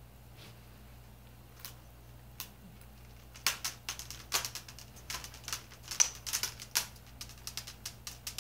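Plastic clips of an HP 15-1271wm laptop's screen bezel snapping into place as it is pressed around the edge: a few scattered clicks, then a quick run of sharp clicks from about three and a half seconds in.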